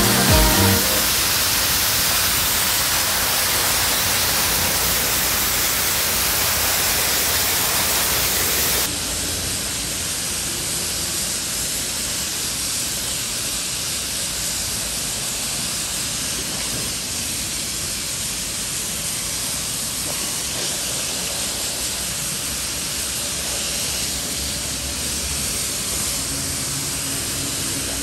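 Pressure washer's high-pressure water jet spraying a coil floor mat on concrete: a steady hiss of spray that drops a little in level about nine seconds in.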